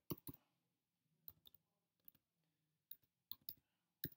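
Faint computer keyboard keystrokes: about ten separate, sharp clicks at an uneven pace as text is typed.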